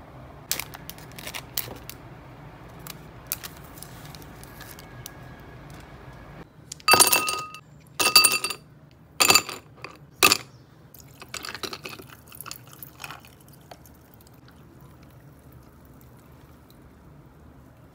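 Light taps and ticks, then four ice cubes dropped one at a time into a stemmed drinking glass, each a sharp clink with the glass ringing briefly. Softer crackling and clinking of the ice follows as tea is poured over it.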